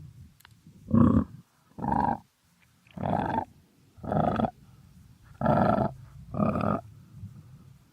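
Crocodile grunting: six short, harsh calls of about half a second each, coming roughly once a second with short pauses between.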